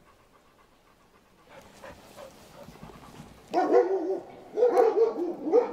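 Dog whining in short, wavering whimpers that come in three bursts, starting about three and a half seconds in.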